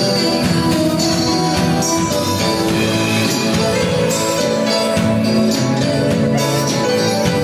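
Band music playing at a steady level, with sustained instrumental notes and chords.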